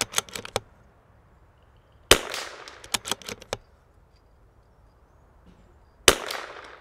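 Two shots from a .22 LR CZ 457 MTR bolt-action rifle, about four seconds apart, the second near the end. Each is followed about a second later by a quick run of faint sharp clicks.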